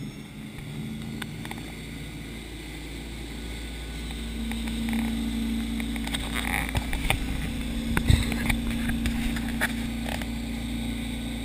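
Towboat engine pulling under load, its note settling steady as the boat comes up to speed, over the rush of the churning wake. A few sharp knocks come near the middle.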